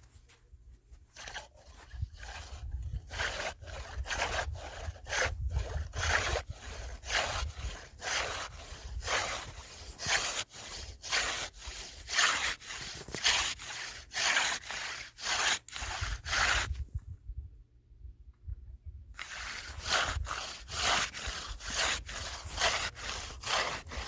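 Hand saw cutting a hole through thick sea ice in steady back-and-forth strokes, about two a second. The strokes stop for about two seconds roughly three-quarters of the way through, then start again.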